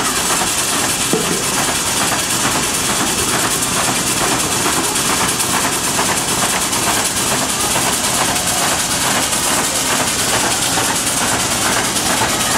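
1904 American LaFrance steam fire engine running and pumping water, its steam cylinders beating in an even rhythm under a steady hiss of steam.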